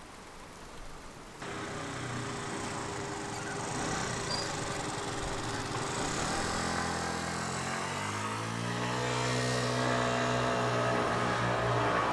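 Street traffic noise that starts abruptly about a second and a half in, then a motor vehicle's engine approaching. The engine grows louder toward the end, its pitch rising in the second half.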